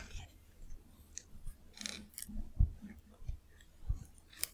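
Close-miked chewing of raw cucumber: irregular crisp crunches and wet clicks, with a few dull low thumps.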